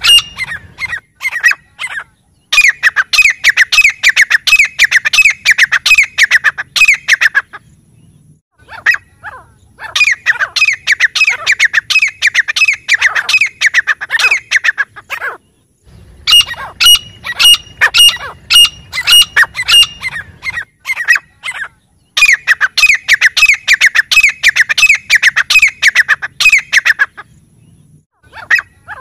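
Grey francolin calling in bouts of rapid, shrill notes repeated many times a second. Each bout lasts about five seconds, with short pauses between them; four bouts are heard.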